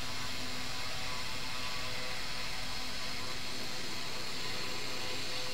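CNC engraving machine's spindle motor running steadily as its bit engraves plywood: an even whir with a faint high whine.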